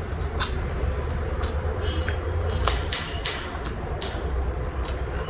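Close-up eating sounds from a meal of spiced chicken heads and feet eaten by hand: chewing, with irregular wet clicks and smacks, over a steady low rumble.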